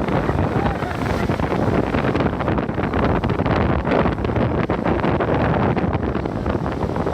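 Rough sea washing and breaking, half buried under heavy wind buffeting the microphone in irregular gusts.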